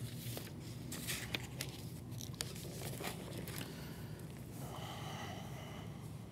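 Faint rustling of paper and light taps as notes are handled at a lectern.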